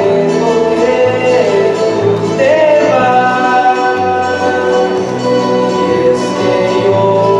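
Student guitar ensemble playing a song on mostly acoustic guitars, with a voice singing the melody over them in steady, sliding phrases.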